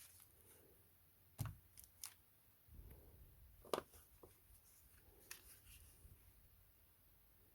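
Quiet handling of packaging while unboxing: scattered clicks and taps with soft rustling between them. The sharpest taps come about a second and a half in and just before four seconds in.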